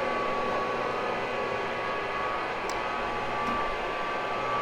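Carpet-cleaning machine's motor running steadily: an even rushing noise with a thin, high whine on top.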